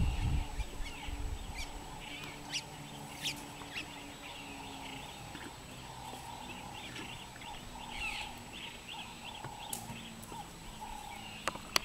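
Wild birds chirping and calling, a busy chorus of short overlapping high chirps, with a few sharp clicks scattered through.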